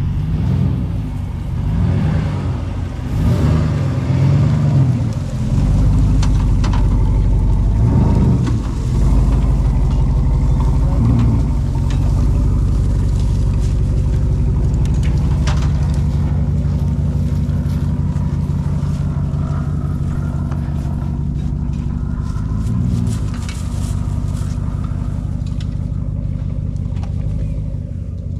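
Ram pickup's Hemi V8 running at low speed while towing a camper trailer, with the engine swelling under throttle several times in the first five seconds and again about 8, 11 and 23 seconds in.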